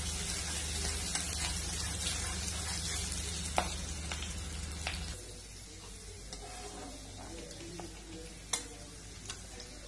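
Thinly sliced onions frying in hot oil in a wok to make birista, a steady sizzle that drops in level about halfway through. A metal slotted spatula stirs them, clinking against the pan a few times.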